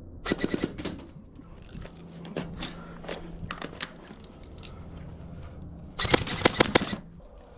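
Airsoft guns firing in short bursts of sharp, rapid clicking shots: a quick burst near the start, scattered single shots in the middle, and a louder burst about six seconds in.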